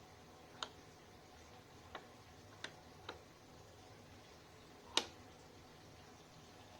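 Five sharp, light clicks and knocks of metal parts being handled and fitted together, irregularly spaced, the one about five seconds in the loudest: pieces of a mini milling machine vise being set in place.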